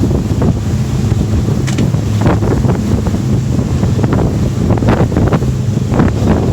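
Twin Mercury 200 V6 outboards running at speed, a steady low drone, under heavy wind buffeting on the microphone and the splash and slap of the hull through the waves.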